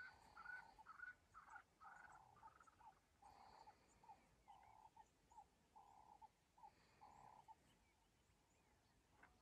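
Faint animal calls: a rapid series of short, pitched notes, alternating higher and lower, about three a second, which stop about three-quarters of the way through. The rest is near silence.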